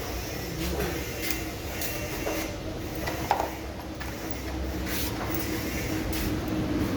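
Tools and engine parts being handled on a workbench: scattered short clicks and knocks, one sharper knock about three seconds in, over a faint steady hum that slowly grows louder.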